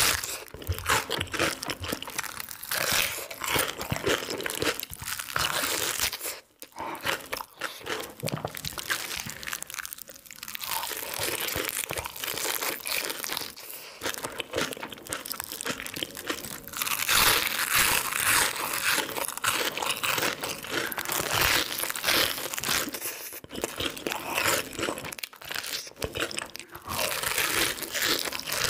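Close-up ASMR eating sounds of crisp sauced fried chicken being bitten and chewed, the coating crunching and crackling, with a short break about six and a half seconds in.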